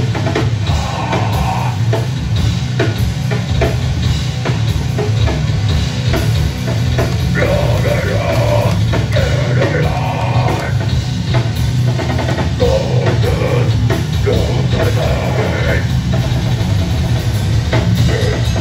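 Live rock band playing loudly: electric guitar, bass guitar and a drum kit, with a singer's voice over them.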